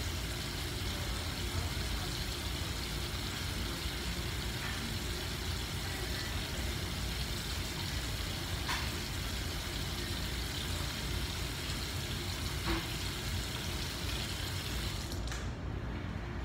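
Steady hiss of running water over a low rumble, with a few faint clicks; the hiss cuts off suddenly about a second before the end, leaving the rumble.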